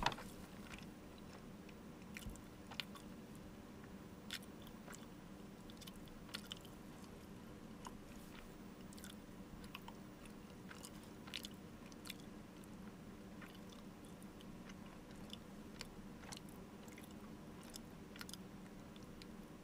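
Faint chewing of a bungeoppang (fish-shaped pastry): small mouth clicks and soft crunches at irregular intervals, over a faint steady hum.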